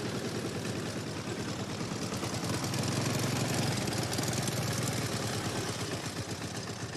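Engine of a small open vehicle running steadily as it drives along, with a fast, even pulse to its sound.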